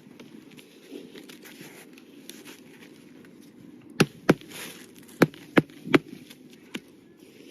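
Rustling and scraping of asphalt shingles being handled, then a run of about six sharp knocks at uneven spacing in the second half, from tool strikes on the shingles.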